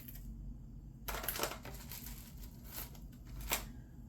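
Hands rummaging through a tray of costume jewelry, giving a few short clicks, clinks and rustles about a second in, near three seconds and again half a second later.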